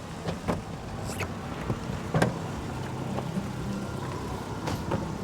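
Car engine running, with several sharp clicks and knocks over it, the loudest about two seconds in.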